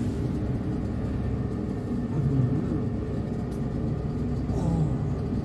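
Steady low drone of a ship's engines and machinery, heard inside a cabin of a platform supply vessel.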